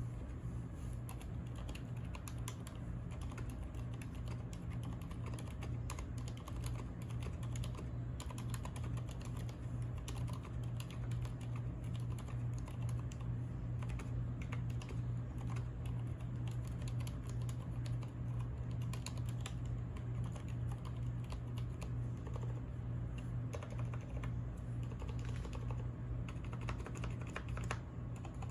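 Fast, continuous typing on a mechanical keyboard, a dense irregular patter of key clicks, over a steady low hum.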